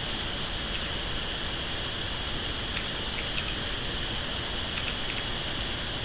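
Steady hiss with a faint constant high whine, over which a few faint, scattered clicks of numeric-keypad keys sound, a small cluster of them about five seconds in.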